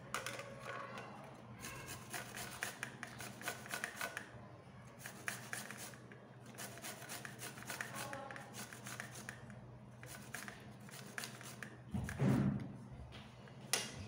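Fresh ginger rubbed against a metal hand grater in quick rasping strokes, with a thump about twelve seconds in.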